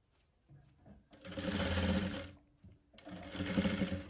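Sewing machine stitching a seam through thick plush fur fabric in two runs of about a second each, with a short pause between.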